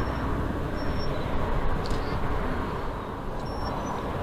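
High-speed catamaran ferry under way offshore, heard as a steady low rumble and rush from its engines and wake.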